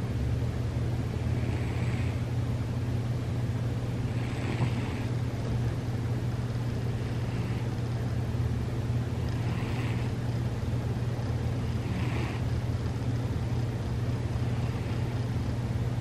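Sleeping domestic cat snoring softly, one breath about every two and a half seconds, over a steady low hum.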